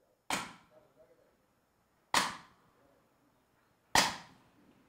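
Three sharp knocks about two seconds apart, each with a short ringing tail in the room, marking the start of a Buddhist dharma talk.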